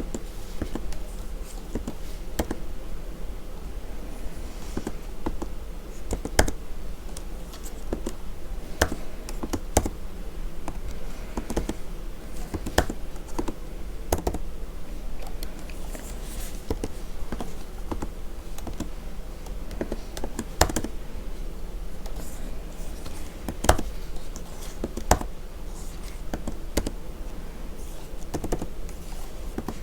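Typing on a computer keyboard, an irregular run of key clicks with now and then a louder keystroke, over a steady low hum.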